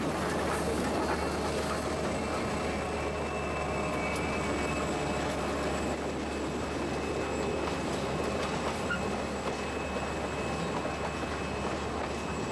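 A train passing close by: 1916 Baldwin 2-8-0 steam locomotive 734 goes past first, then a GP30 diesel and passenger coaches roll by on the rails. Through it runs a steady thin squeal of wheels on the rail.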